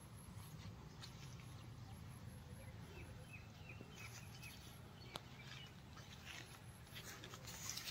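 Quiet outdoor ambience: a low steady rumble, with a few faint short chirps about three seconds in and a single sharp click a little after the middle.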